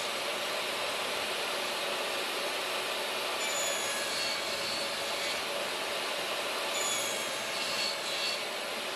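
Portable table saw running steadily while a finger joint sled pushes two clamped wooden boards through the spinning blade, cutting a notch.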